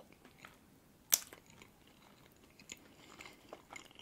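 A person biting into and chewing a soft cream-topped cupcake: quiet, sparse mouth sounds of chewing, with one sharp click about a second in as the loudest sound.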